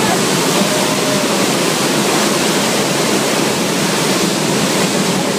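C-130 Hercules's four turboprop engines running on the ground, a loud, steady noise heard from inside the cargo hold with the rear ramp open.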